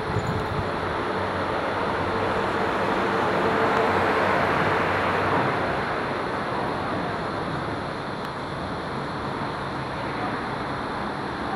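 A road vehicle passing by: a rushing tyre-and-engine noise that swells to its loudest about four seconds in and then fades back to a steady background rush.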